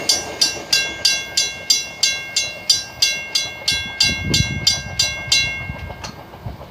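Railroad crossing bell ringing steadily at about three strikes a second, then stopping near the end.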